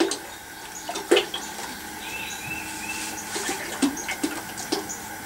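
Canola oil pouring from a plastic gallon jug into a pot, a steady splashing stream.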